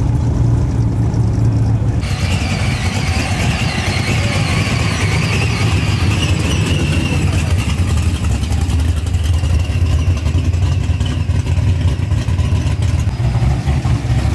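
A car engine running at idle with a steady low note. About two seconds in, a higher-pitched noise joins and carries on over it.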